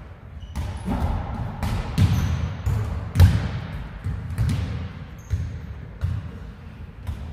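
Basketball bouncing on a hard court, a run of irregularly spaced thuds about one or two a second, with a few short high squeaks in between.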